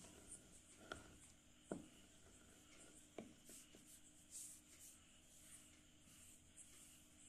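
Faint scraping and rubbing of a white chalk stick and fingers through crushed chalk powder on a hard surface, with a few soft knocks in the first few seconds.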